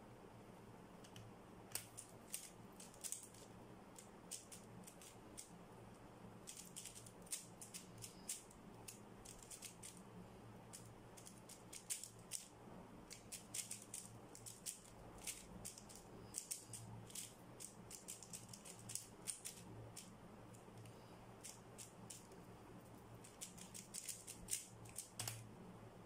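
A 3x3 Rubik's cube being turned fast by hand: quick runs of faint plastic clicks from the layers snapping round, with short pauses between the runs. The clicking starts about two seconds in and stops near the end as the solve is finished.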